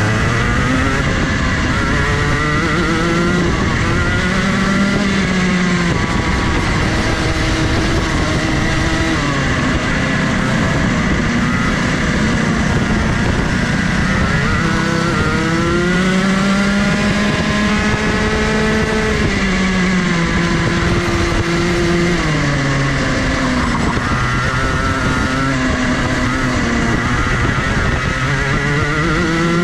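Rotax 125cc single-cylinder two-stroke kart engine heard onboard at racing speed, its pitch climbing on the straights and dropping off into the corners several times over.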